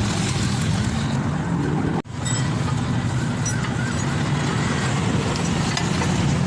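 Motor vehicle engine running steadily, cutting out abruptly for an instant about two seconds in, then carrying on.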